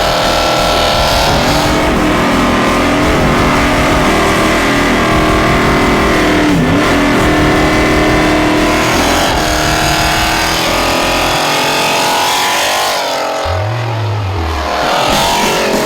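Holden Commodore engine revving hard, its pitch rising and falling several times as the car is driven.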